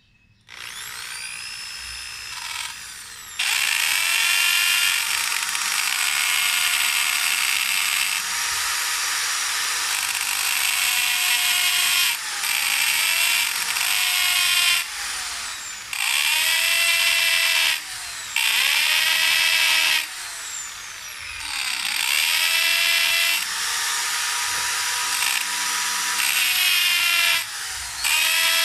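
Corded electric drill boring a hole through a hardwood board. Its motor whine climbs as it spins up about half a second in, then repeatedly dips and climbs again as the trigger is eased off and squeezed back on.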